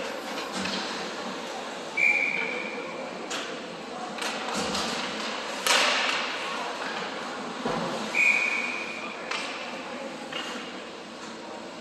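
Ice hockey game sounds in an arena: several sharp knocks of puck and sticks against the boards and ice. Twice there is a high whistle-like tone about a second long that fades away.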